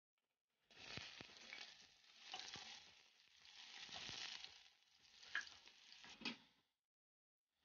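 Sliced onions hitting hot oil in a metal cauldron and sizzling, starting abruptly about a second in, while a wooden spatula stirs and scrapes them around the pot; a couple of sharper knocks near the end.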